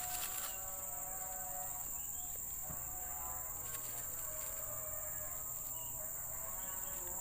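A steady, high-pitched insect drone, typical of a rainforest cicada chorus, under several held, gently wavering tones.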